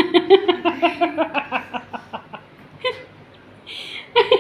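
A child laughing in a quick run of short, even bursts that die away after about two seconds, followed near the end by a short breathy hiss.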